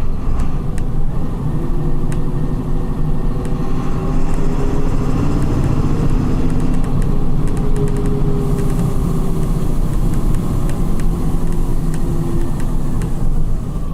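Volkswagen 17.230 EOD bus engine with ZF gearbox running steadily while under way, with a faint whine that rises and falls a little in pitch. Light ticks and rattles come through now and then.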